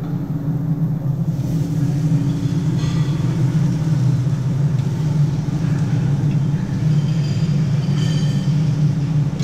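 Steady low rumble of ventilation fans, with a few faint clinks of dishes or utensils.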